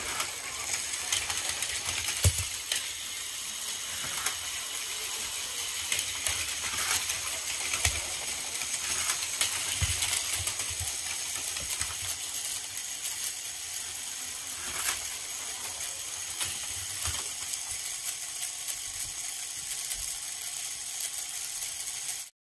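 Several battery-powered Plarail toy trains running on plastic track: a steady high whirring and clatter of their small motors and wheels. Sharp plastic knocks come as the trains collide and derail, the loudest about two seconds in. The sound cuts off suddenly just before the end.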